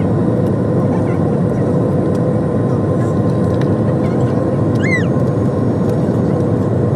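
Jet airliner cabin noise on final approach: a steady roar of engines and rushing air with a steady hum. About five seconds in, a short high squeak rises and falls.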